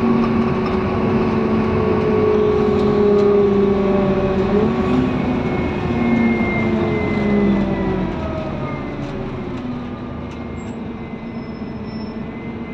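Scania N230UD Omnidekka double-decker bus heard from inside the saloon: the five-cylinder diesel engine pulls with a steady note, then the note glides down and the sound drops away about eight seconds in as the bus eases off.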